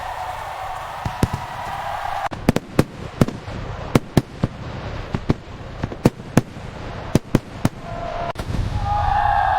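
Fireworks going off: a steady rushing noise, then from about two seconds in a rapid, irregular run of sharp bangs and cracks.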